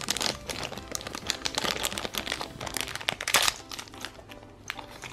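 Thin clear plastic bag crinkling and crackling as fingers tear it open and work a small plastic keychain out, the crackles thinning out near the end.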